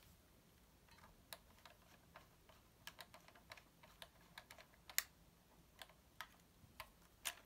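Faint, irregular clicks and taps of fingers handling a 1:18 diecast model car and touching its plastic underside, the loudest click about five seconds in.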